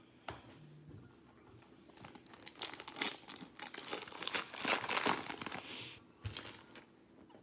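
Foil trading-card pack wrapper from a 2019-20 Revolution basketball box being torn open and crinkled by hand. After a quiet start, about four seconds of dense crackling and tearing, stopping shortly before the end.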